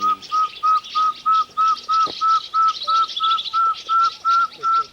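A bird giving a long, even series of short whistled notes, about three a second, each note climbing a little higher than the last, over fainter high chirping from other birds.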